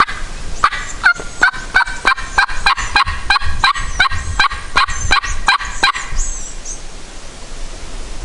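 A long series of sharp turkey yelps, about three a second, that stops about six seconds in.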